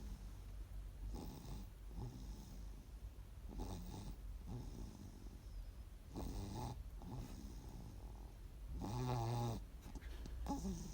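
Snoring, one breath about every two and a half seconds, the loudest one near the end with a steady pitched drone.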